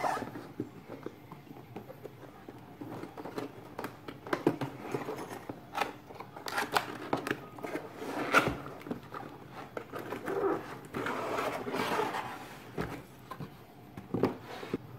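Cardboard monitor-arm box being handled and opened by hand: the box scraping and sliding on the desk and the cardboard flaps rubbing and pulling open, with scattered sharp knocks and clicks.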